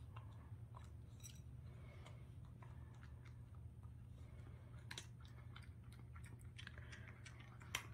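A cat eating dry kibble from a glass bowl: faint, irregular crunches and clicks of chewing, with one louder click near the end.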